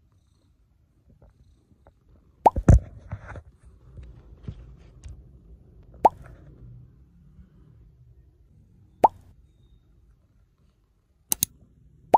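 Short cartoon-style "plop" pop sound effects: a pair, then two single pops about three seconds apart, then a quick pair near the end, over faint low background noise.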